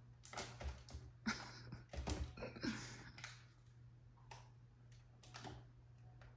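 A cat clambering among packed boxes and containers on a pantry wire shelf: faint knocks, clicks and rustling of packaging, bunched in the first three seconds, then a couple of single knocks.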